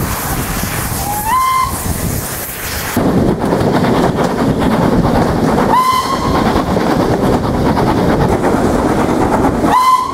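Steam whistle of Southern Railway S15 4-6-0 No. 847 sounding three short blasts, about a second in, about six seconds in and at the very end, the first sliding up in pitch as it opens. Underneath, the steady rumble and clatter of the carriages running at speed, heard from an open carriage window as the train nears and enters a tunnel.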